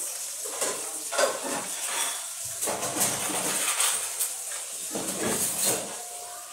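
Metal bowls and dishes clattering and scraping as they are handled, in a run of irregular knocks.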